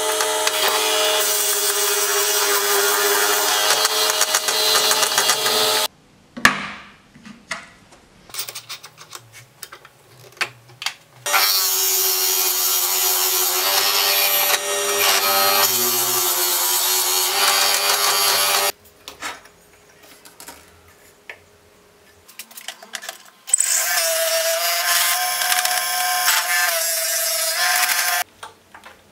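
Wood lathe running while a drill bit in a tailstock chuck bores into a spinning pine blank: a steady machine whine with the grinding of the bit cutting wood. It comes in three spells of several seconds, each cutting off suddenly, with quieter clicks and knocks between them.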